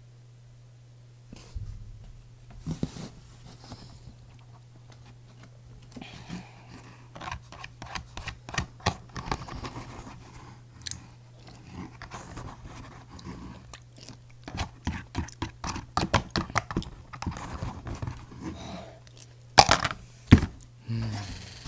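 Close-miked eating: crunchy chewing, many small crackles and crunches in quick succession, over a low steady hum. Two louder knocks come near the end.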